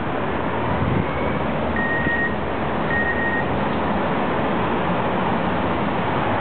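Steady city street traffic noise from passing cars, with two short high beeps about a second apart near the middle.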